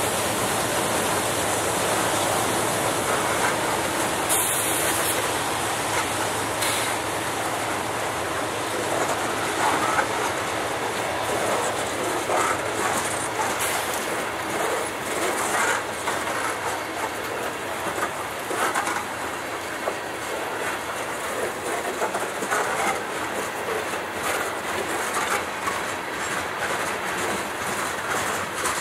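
Freight cars of a Norfolk Southern train rolling steadily past, their steel wheels clicking and clattering over the rail joints.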